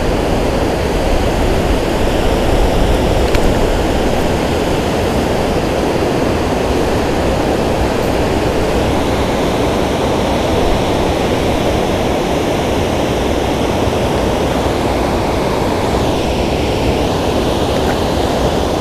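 Steady rushing of water pouring over a low spillway dam, a loud, even roar of falling water.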